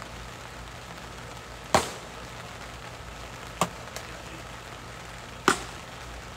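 Three sharp knocks about two seconds apart, the first and last loudest, with a faint click between the second and third, over a steady outdoor hiss.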